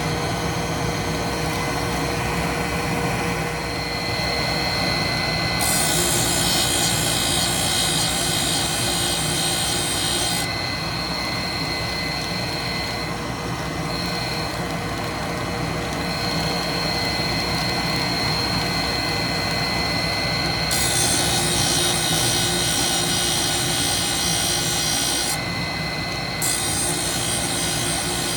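Cutter grinder motor running steadily while the grinding wheel face-grinds carbide stack cutters. Three times the wheel bites into a cutter face for a few seconds, adding a bright hissing grind over the hum.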